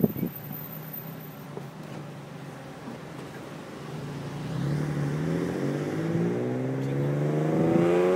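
Car engine running quietly, then accelerating from about halfway through, its pitch rising steadily and its sound growing louder.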